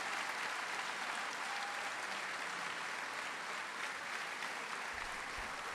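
Audience applauding steadily after a speech ends: a large seated crowd clapping.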